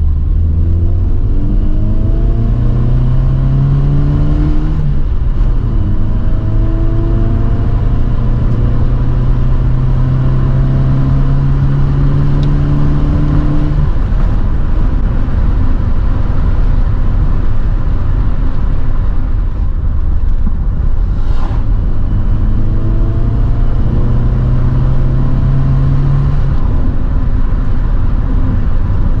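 MG Metro's 1275 cc A-Series four-cylinder engine, gearbox in the sump, pulling under acceleration. The pitch climbs, drops at a gear change about five seconds in, climbs again and falls back about fourteen seconds in, then rises once more from about twenty seconds before easing off near the end.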